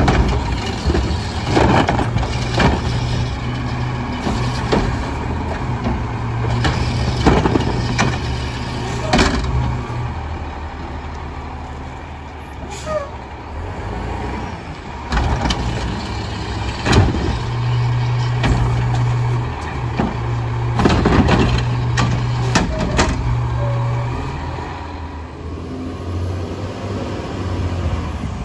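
Autocar WXLL garbage truck with a McNeilus Pacific front-loader body and Curotto Can arm at work: its diesel engine runs and twice rises to a higher, steady speed for several seconds. Repeated sharp metal bangs and clanks sound throughout.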